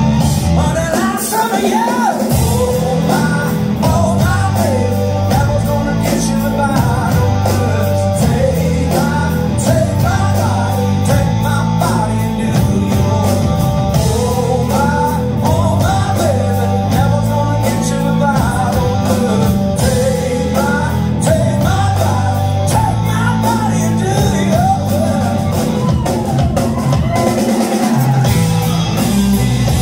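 Rock band playing live at full volume: electric guitars, bass and drum kit with a lead vocal.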